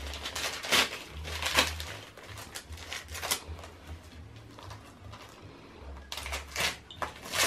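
Christmas wrapping paper being torn and crumpled by hand as a small gift is unwrapped, in several short crackling rustles.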